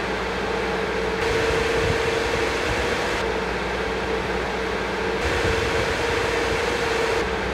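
Cooling fans of a Palit GeForce RTX 3070 GameRock OC graphics card running at 100% speed: a steady rushing whoosh with a constant hum. It switches about every two seconds between the new replacement fans and the old fans worn from mining use, which are noticeably louder and hissier.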